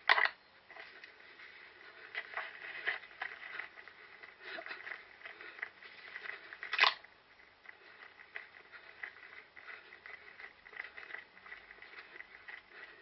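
Irregular muffled rustling and scraping picked up by a head-mounted GoPro as the wearer moves, with two sharp knocks, one at the very start and one about seven seconds in.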